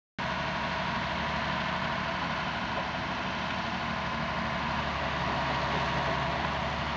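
Perkins diesel engine of a Hy-Mac 610 wheeled excavator running steadily at low revs.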